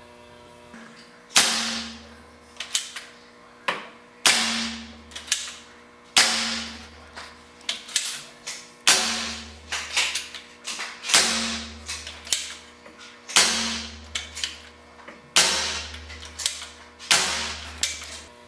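Hand-made DRV paintball revolver firing about eight shots, roughly one every two seconds. Each shot is a sharp crack that trails off over about a second, with lighter clicks between shots as the hammer is pulled back.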